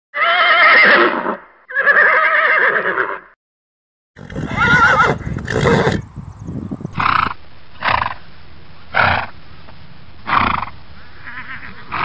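Horse neighing: two long whinnies with a wavering pitch, then a rougher neigh a few seconds in. These are followed by a series of short breathy blasts about once a second.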